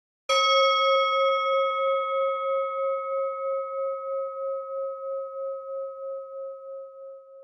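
A singing bowl struck once, ringing on and slowly dying away with a steady wavering beat of about four pulses a second. It marks the opening of a meditation practice.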